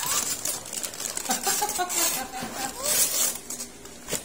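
Gift wrapping paper being torn off a box by hand, in several separate rips.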